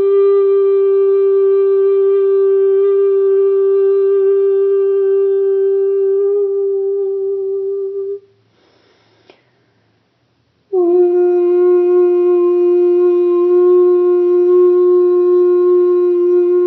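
Wordless light singing: one voice holds a long, steady note, breaks off about eight seconds in for a breath, then takes up a second, slightly lower held note.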